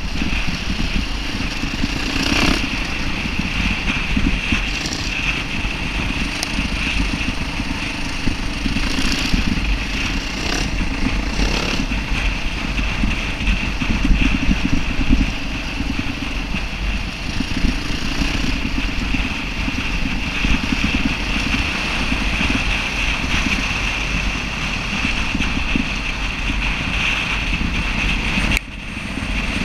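Enduro dirt bike engine running steadily while riding over a rough dirt and gravel track, heard from an onboard camera, with scattered knocks from bumps. The sound dips briefly near the end.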